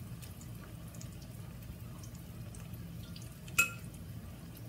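Mackerel patties frying in hot vegetable oil in a cast-iron skillet: a steady sizzle with many small scattered pops. A single sharp clink with a short ring stands out about three and a half seconds in.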